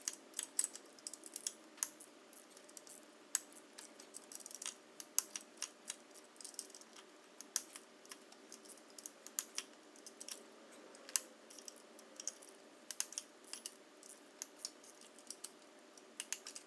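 Irregular light metallic clicks and clinks of hand tools and small fittings on top of a 2.5-litre turbo Dodge four-cylinder engine, as the parts still connected to the cylinder head are undone by hand.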